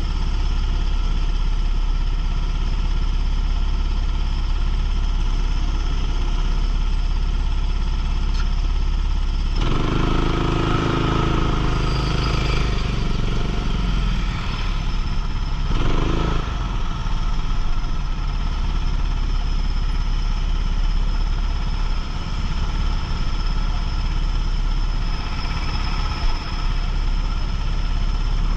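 Go-kart engine running hard under racing load, heard from onboard. Its pitch shifts as it comes off and back onto the throttle, with a louder stretch about ten seconds in and another pitch sweep around sixteen seconds.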